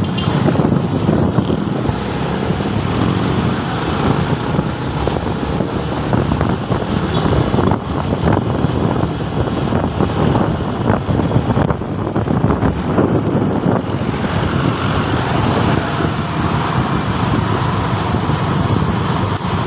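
Wind rushing and buffeting over the microphone of a moving motorcycle, over a steady bed of engine and road noise from city traffic.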